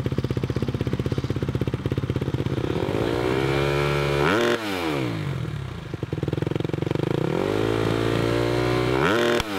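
2020 Kawasaki KX250's four-stroke single-cylinder engine running through a Dr. D NS-4 exhaust with stainless header and aluminium muffler. It pulls steadily, climbs in pitch for about a second and a half, then the throttle shuts off suddenly and the pitch falls away. This happens twice, the second cut coming near the end.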